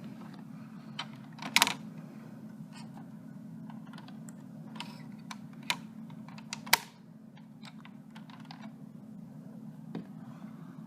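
A 2001 York 2.5-ton central air conditioner's outdoor unit running with a steady low hum. Scattered sharp clicks and ticks sit over the hum, the two loudest about a second and a half in and near seven seconds in.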